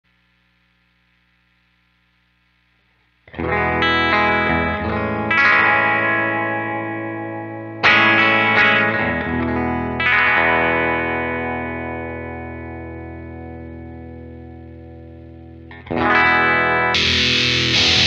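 Electric guitar played clean, starting after about three seconds of silence: a few chords strummed and each left to ring and fade. About a second before the end the tone switches to a thick, hissy fuzz as a Death By Audio Apocalypse fuzz pedal is switched in on its Twin-T Scoop setting.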